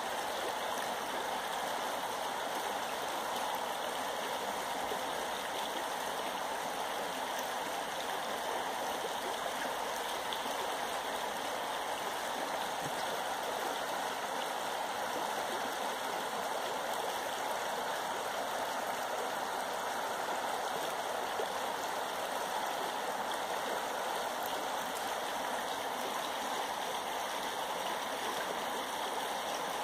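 River water running steadily, an even rushing that doesn't change.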